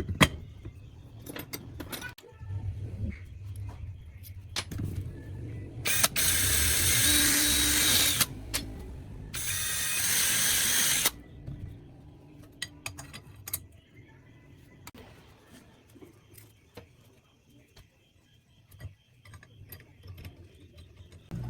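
Clicks and knocks of metal tools being handled, with two loud bursts of a small power tool running, each about two seconds long, in the middle.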